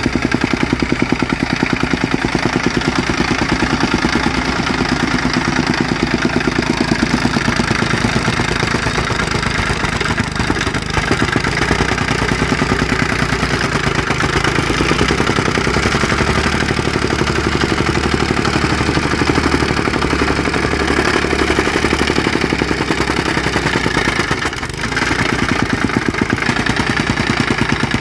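Soil compactor running steadily, its engine and pounding mechanism making a loud, rapid, even pulsing, with a brief dip about 25 seconds in.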